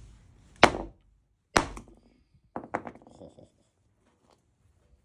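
Two heavy sledgehammer blows on a dolomite boulder, about a second apart, each a sharp crack. A second later come a few lighter clicks and knocks as the rock and its pieces shift on the concrete floor.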